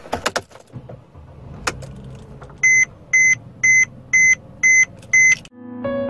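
Car key clicking and rattling in the ignition of a Mercedes-Benz W212 E300, then six even electronic beeps from the dashboard warning chime, about two a second.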